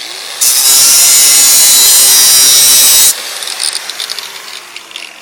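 Dremel rotary tool running at full speed and grinding against metal for about two and a half seconds. It is switched off abruptly and winds down with a slowly falling whine.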